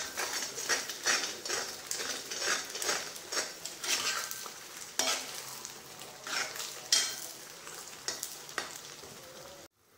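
Steel spoon stirring and scraping a thick mint paste around a heavy kadai, about two strokes a second, while the paste sizzles in oil on a low flame. This is the slow sauté of a mint thokku being cooked down until the oil separates. The strokes grow fainter and stop abruptly near the end.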